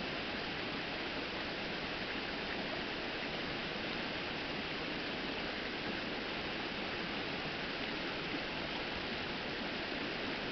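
Rocky stream rushing over boulders in small cascades: a steady, even rush of water.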